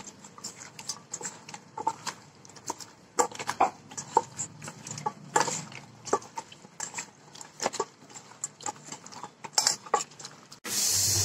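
A hand mixing spice-pasted rohu fish heads in a steel bowl: irregular wet squelches and sharp clicks as fingers and a bangle knock against the bowl. Near the end it cuts abruptly to a steady hiss.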